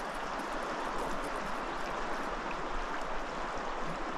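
Steady rush of a flowing river, an even hiss of water with no separate events.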